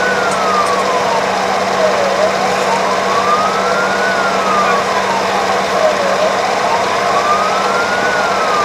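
Emergency-vehicle siren wailing, its pitch rising for about two seconds and falling for about two, over steady road and engine noise.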